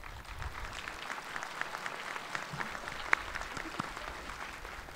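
Audience applauding, with one louder clap about three seconds in.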